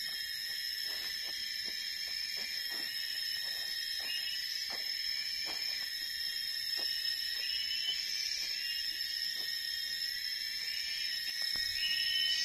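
Steady high-pitched drone of forest insects, with wavering trills over it. Under it, a hoe blade chops and scrapes into leaf-littered soil, soft knocks about once a second that die away after the first several seconds.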